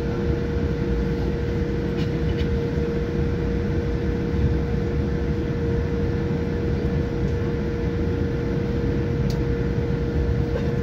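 Steady cabin noise of a Boeing 787-9 taxiing, heard from a seat over the wing: a low rumble from the engines at idle with a steady hum, and a couple of faint clicks.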